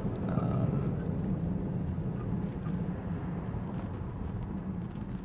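Steady low hum of engine and road noise inside a moving car's cabin, fading slightly toward the end.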